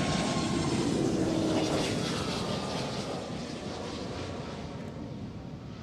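Aircraft engine noise from a fixed-wing plane flying by, steady for about two seconds and then fading away.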